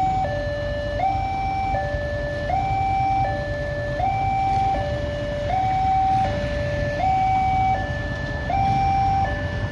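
Railway level-crossing warning siren sounding a steady two-tone hi-lo alarm, its high and low notes switching about every three-quarters of a second, the signal that a train is approaching. A low rumble runs beneath it.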